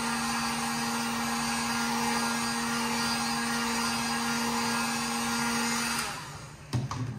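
Handheld electric heat gun running with a steady hum and rush of air, heating vinyl wrap so its edges can be tucked. It is switched off about six seconds in and winds down.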